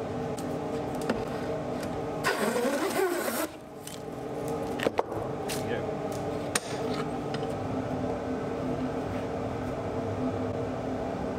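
Hand plane taking a stroke along the edge of a pine board held in a bench vise, a brief rasping swish about two seconds in, followed by a couple of sharp knocks as the tool is set down, over a steady workshop hum.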